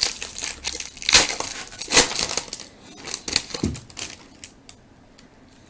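A trading-card pack's wrapper being torn open and crinkled. The crackling is busiest in the first three seconds, then gives way to a few scattered clicks and rustles as the cards are handled.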